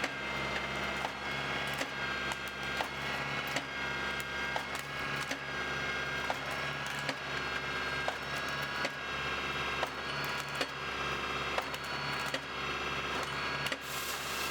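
Tractor engine running steadily to power the Naarva S23C felling and delimbing head, with frequent sharp cracks and snaps of wood as the head works a tree.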